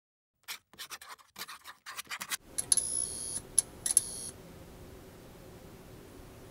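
Neon-sign sound effect: a quick run of crackling clicks as the sign sputters, then a steady electrical hum, broken by a few sharp clicks around three to four seconds in.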